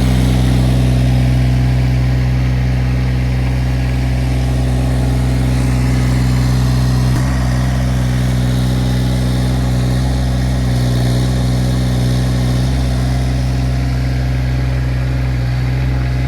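Yanmar 3TNV74F three-cylinder inline diesel of an SDLANCH ME20 mini excavator running steadily, with a slight wavering in pitch about halfway through.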